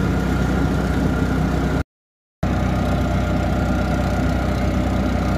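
Auto-rickshaw engine running steadily, heard from inside the open passenger cabin while riding. It drops to dead silence for about half a second a little under two seconds in, then resumes unchanged.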